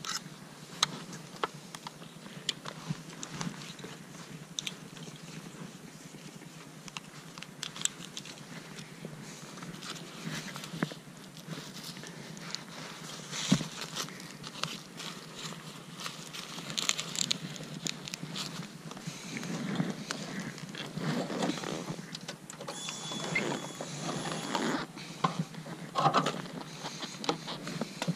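Rustling and irregular clicking of leather motorcycle gear, a jacket, helmet and strap and gloves, handled close to the microphone. No engine is running.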